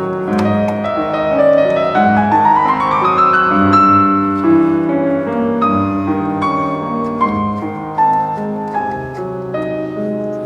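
Background piano music, with a run of notes climbing in pitch about two to four seconds in.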